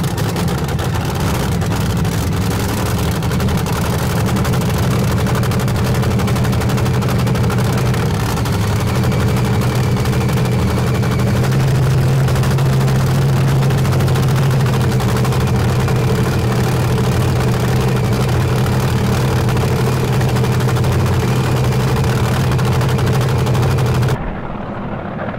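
Nitro-burning supercharged V8 engine of a front-engine fuel dragster running a loud, steady pit warm-up. Its note firms up slightly about halfway through, and the sound cuts off abruptly near the end.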